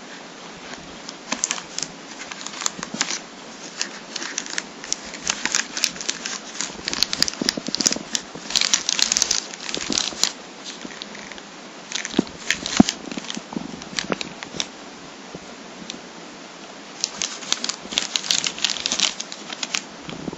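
Clear plastic bag around a wireless router crinkling and crackling in irregular bursts as the router is handled and lifted out of its cardboard box, with one sharp knock about halfway through.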